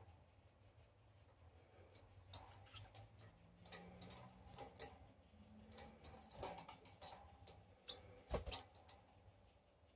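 Faint, scattered clicks and taps of canaries hopping and fluttering between perches in a wire cage, with one short high peep near the end.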